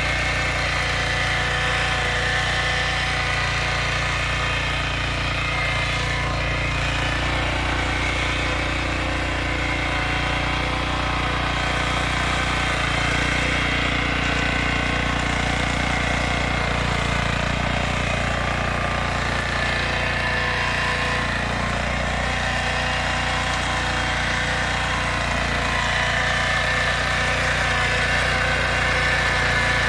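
Lombardini engine of a Yağmur YET 320 running steadily while it digs deep, an even engine drone with a regular low pulse that holds level throughout.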